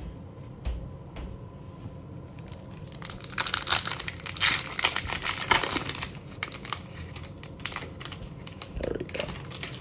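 Foil wrapper of an Upper Deck hockey card pack crinkling and tearing as it is ripped open by hand. The crackling is densest from about three to six seconds in, with scattered crinkles after.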